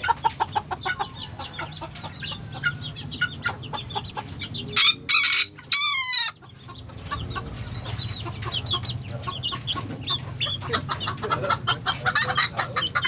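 A rooster crows once, loud and short with a brief break in the middle, about five seconds in, while caged chickens cluck throughout.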